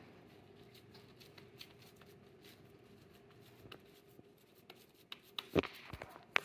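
Hands scooping and pressing a moist fish-and-cracker patty mixture, with soft squishing and rustling. A few sharper clicks come near the end.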